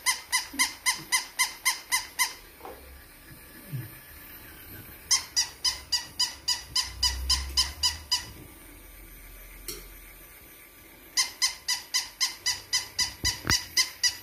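Battery-powered pink plush toy giving a rapid electronic chirping beep, about four beeps a second, in three runs of about three seconds with pauses between.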